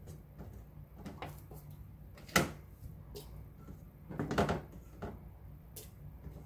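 Knocks and clicks of cucumber slices being added by hand to a glass drink dispenser of water: one sharp knock about two and a half seconds in, then a quick cluster of knocks around four seconds in, with a few fainter clicks between.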